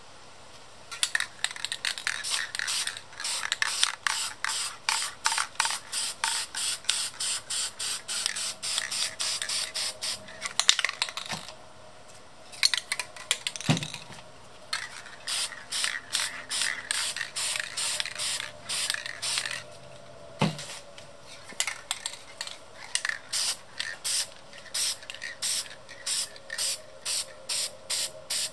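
Aerosol spray-paint can hissing in short, rapid bursts, about three a second, as black paint is dusted over a stencil, with two brief pauses. A couple of dull knocks fall in the pauses.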